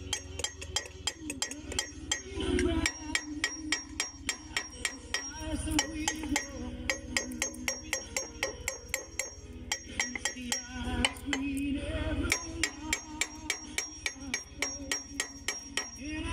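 A hammer striking steel over and over, about three blows a second, each blow ringing briefly.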